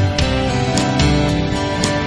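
Background music: sustained guitar-led chords with light percussion hits every half second or so.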